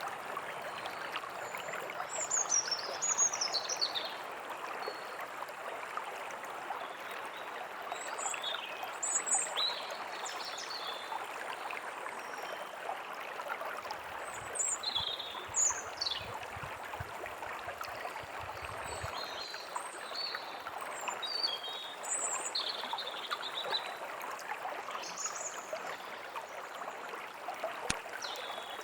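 Steady rushing of a forest stream, with small songbirds chirping and calling over it in short, scattered phrases, some sliding downward in pitch.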